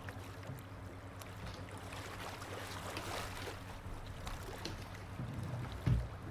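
Rain-and-water ambience: a steady soft wash of water with small scattered drips and splashes, and a low thump near the end.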